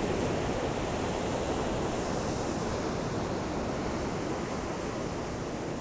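Ocean surf breaking and rushing on the shore, a steady wash of waves, described as "amazing".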